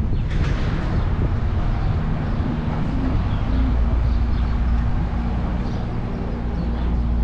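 Car's engine and tyre rumble heard from inside the cabin as it drives slowly along a city street, a steady low noise that gets deeper and stronger about halfway through.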